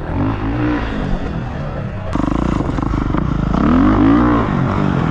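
Kawasaki KX450 dirt bike's single-cylinder four-stroke engine revving up and back down twice, running at low revs with evenly spaced firing pulses in between.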